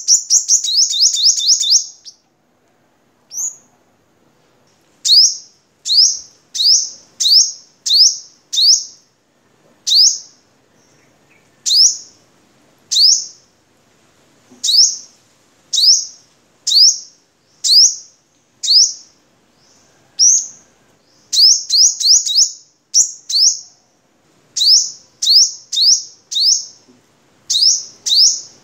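Caged male sunbird singing: a rapid high trill at the start, then a long series of sharp, high notes that each sweep downward, about one a second, coming in quicker runs near the end.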